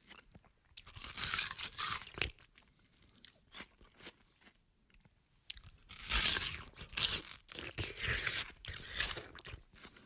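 A person biting into and chewing watermelon, with juicy crunching. There is one burst about a second in, small clicks through the middle, and a longer run of several crunches from about six seconds in.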